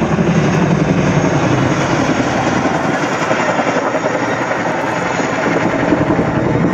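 Boeing Chinook HC.4 tandem-rotor helicopter flying overhead: the rapid, loud beat of its two rotors' blades over the steady noise of its twin turboshaft engines.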